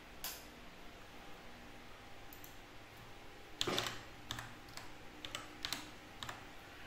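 Irregular keystrokes and clicks on a computer keyboard: one tap just after the start, then a scattered run of taps from about three and a half seconds in, the first of them the loudest.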